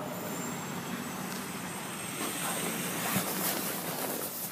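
2011 Dodge Charger SE's 3.6-litre V6 idling steadily, heard from beside the cabin, with some rustle of handling in the second half.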